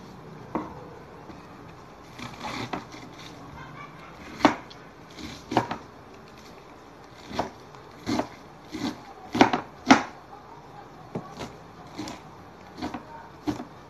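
Plastic snack packet crinkling as it is torn open and handled, a string of irregular sharp crackles, the loudest a little before the end.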